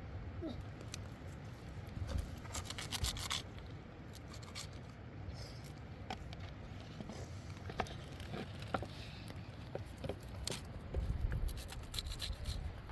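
Handling noises: rubbing and scraping with scattered light clicks and taps, and a longer scratchy stretch about two to three seconds in, over a steady low rumble.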